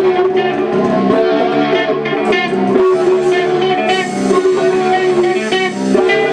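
Music: a guitar-led instrumental passage with plucked and strummed electric guitar and no singing.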